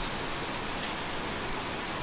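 Heavy rain falling steadily, an even hiss with a few faint drop ticks.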